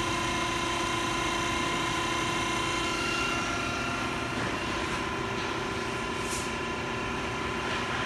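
Pull-test machine running steadily as it loads a rope anchor, a constant mechanical hum with a steady whine that shifts in pitch about three seconds in. A brief hiss about six seconds in.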